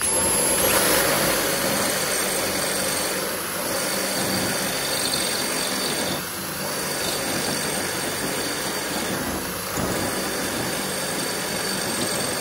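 SKIL PWRCore 20 brushless 20 V cordless drill running on speed 2, boring a half-inch masonry bit through a clay brick: a steady drilling and grinding noise that starts abruptly and runs without a break.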